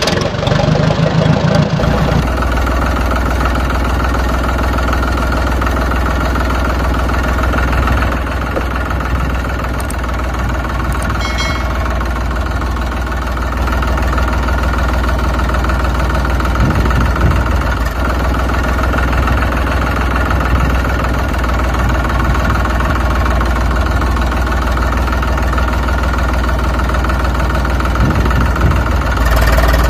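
Tractor engine running steadily at idle, a recorded engine sound laid over a toy tractor.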